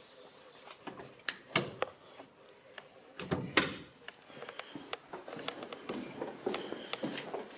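Sharp knocks and clunks: two about a second and a half in, then a louder pair about three and a half seconds in, followed by lighter scuffing and rustling.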